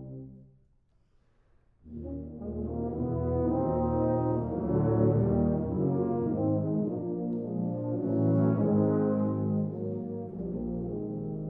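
Tuba and euphonium quartet (two euphoniums, two tubas) playing sustained chords. A held chord dies away at the start, there is a pause of under two seconds, then the quartet comes back in with full chords that swell louder twice.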